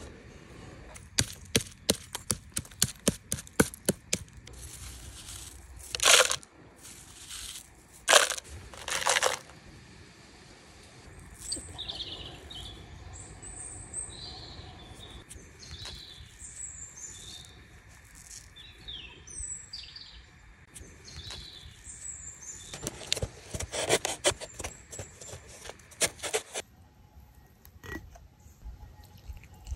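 Runs of sharp clicks and crackles with a few louder bursts, then small birds chirping for several seconds, then another run of crackling.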